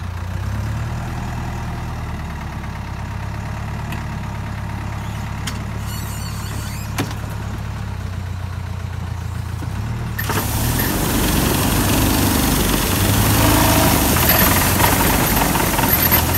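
Tractor engine running steadily at low revs. About ten seconds in, an olive trunk shaker clamped to the tree starts up, and a much louder, dense noise of the machine shaking the tree takes over, with the engine working harder.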